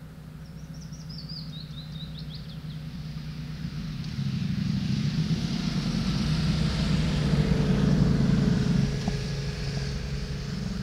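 Low motor-vehicle engine rumble that builds for several seconds, is loudest about eight seconds in, then eases off as the vehicle passes close by. A small bird gives a short, falling trill near the start.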